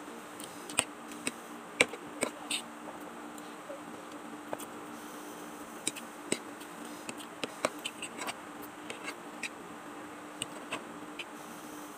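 A metal fork clinking and scraping against a ceramic plate while twirling and lifting noodles: short, sharp clicks at irregular intervals, the loudest about a second and two seconds in.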